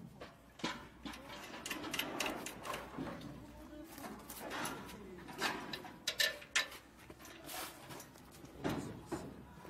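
Spanners and bolts clinking and knocking on the metal frame of a walking-tractor reaper as it is bolted together: a scattered series of short, sharp metallic clicks, with low voices murmuring underneath.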